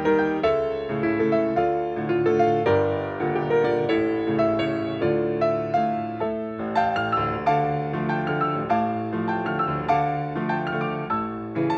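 Solo piano playing a ballet-class accompaniment: a light classical tune in a steady, even rhythm of repeated chords and melody notes.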